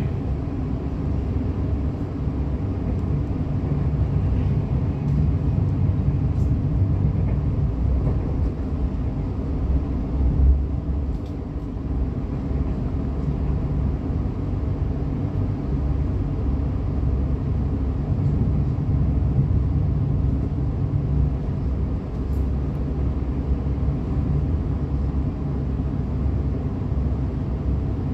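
Steady low rumble of a moving train heard from inside the carriage: wheels and running gear on the rails, holding an even level throughout.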